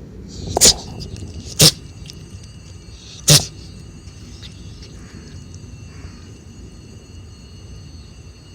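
Three short, sharp sneezes: two about a second apart, the third about a second and a half after them.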